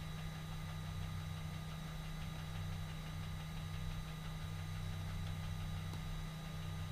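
Steady electrical hum with a hiss and a few faint, thin steady whines above it, the background noise of a computer and its recording microphone.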